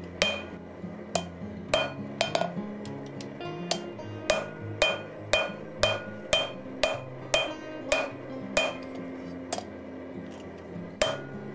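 Hand hammer striking hot leaf-spring steel held in tongs on an anvil, a steady run of ringing blows about two a second with a brief pause near the end, as the bar is drawn out and upset. Background music plays underneath.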